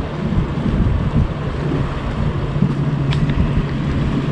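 Wind buffeting the microphone, with a steady low hum underneath that grows stronger partway through.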